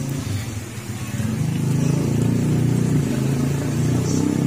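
A motor vehicle's engine running steadily, a low rumble with a rapid even pulse.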